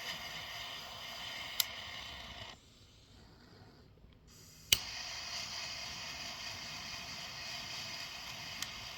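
Triple-jet butane torch lighter burning with a steady hiss. The flame stops about two and a half seconds in; a couple of seconds later a sharp ignition click relights it, and the hiss runs on to the end, with a couple of faint clicks along the way.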